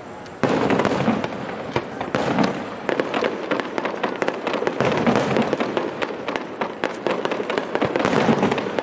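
Aerial fireworks going off: a sudden loud burst about half a second in, then a dense, continuous crackle of many sharp pops and bangs.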